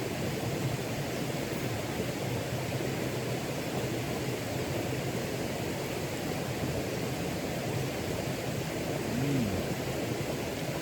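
Steady rushing of river water, an even noise without breaks.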